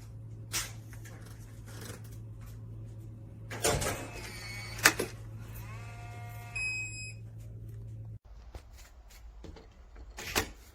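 Electronic smart-lock tones: a short melodic chime followed by a run of beeps, with scattered mechanical clicks over a steady electrical hum that cuts off abruptly about eight seconds in.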